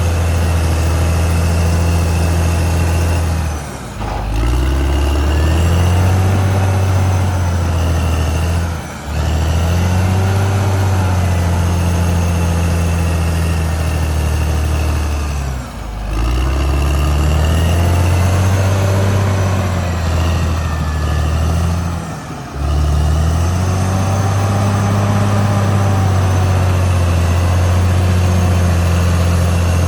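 Caterpillar D6R XL bulldozer's diesel engine running hard, briefly dropping in pitch and loudness four times, about every six seconds, and climbing back up each time.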